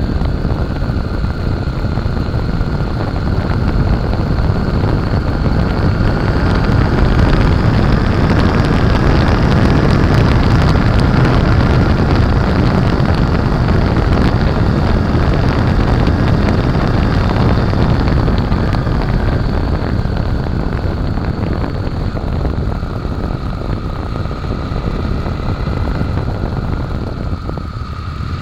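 Honda Shadow Aero 750 V-twin motorcycle engine running under way, mixed with wind rush on the microphone. It gets louder and climbs a little in pitch through the middle, then eases off near the end before picking up again.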